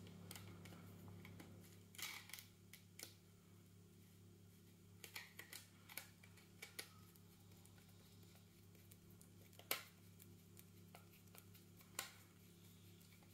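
Faint scattered clicks and taps from a hand screwdriver driving a small screw into a plastic pistol grip base plate, over a low steady hum. Two sharper taps stand out in the second half.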